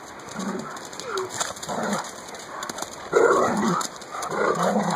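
Two dogs play-fighting, growling in short, irregular bouts, the loudest bout a little past the middle.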